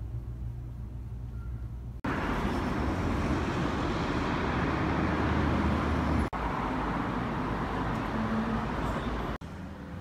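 City road traffic noise, an even rushing sound that cuts in suddenly about two seconds in and swells for a few seconds, then drops back to a low room hum near the end.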